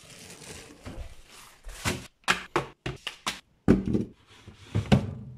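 A plastic bread bag crinkling as it is handled, followed by a run of sharp knocks and taps, about a dozen, from kitchen things being handled and set down.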